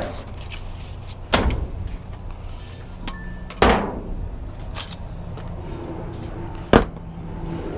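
Knocks and clatters of scrap being handled and tossed: three sharp hits, about a second and a half in, near four seconds in, and the loudest near the end, with a lighter knock between them.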